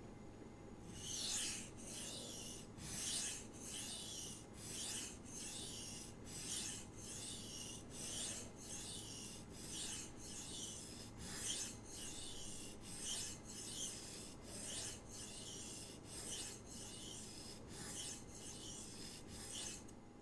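S30V knife blade being stroked across a Shapton Glass 500 whetstone: a gritty, high rasp, repeated in steady strokes a little more than once a second, starting about a second in. The edge is being raised to a burr.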